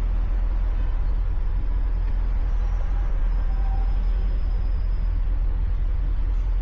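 2017 Mustang GT's Coyote 5.0 V8 with a Corsa Xtreme cat-back exhaust running at a steady cruise: an even, low rumble that holds constant, with no revving.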